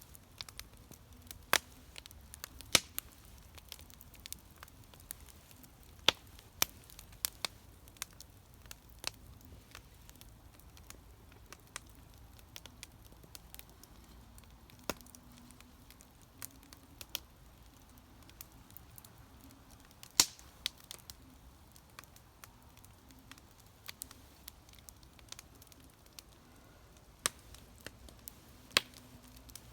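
Wood campfire crackling: irregular sharp pops and snaps, a few a second, some much louder than others, over a faint steady low noise.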